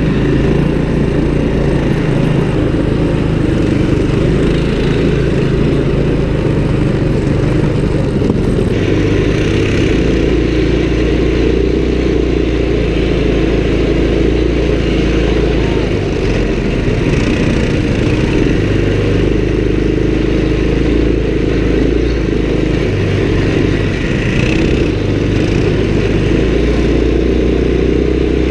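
Small single-cylinder mini bike and quad engines running steadily under way, with wind rumbling on the microphone.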